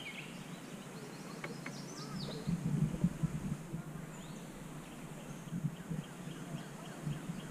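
Quiet outdoor river ambience with a few faint bird chirps, and a short cluster of soft knocks and rustling in the canoe about two and a half to three seconds in.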